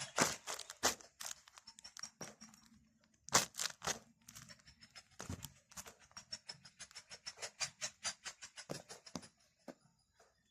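Homemade paper squishy (napkin paper and water) crackling and crinkling as it is squeezed in the hands: irregular sharp crackles, coming in a faster run in the second half. Faint background music underneath.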